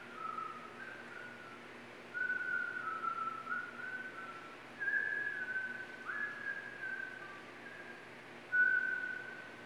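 A person whistling a slow tune in held notes that step up and down, over a faint steady low hum.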